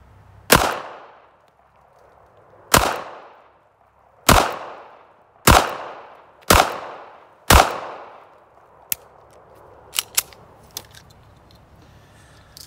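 Six shots from a Ruger LCP .380 pocket pistol fitted with a flat-face trigger, stainless steel guide rod and 13-pound recoil spring set. Each shot is a sharp crack with a fading echo. The shots come faster as the string goes on, the last ones about a second apart, and a few faint clicks follow.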